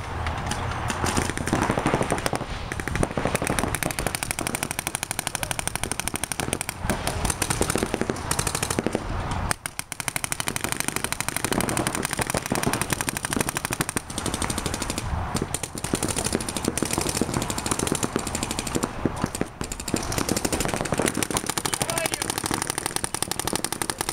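Paintball markers firing in rapid, continuous strings of pops during a game, with a brief lull about ten seconds in.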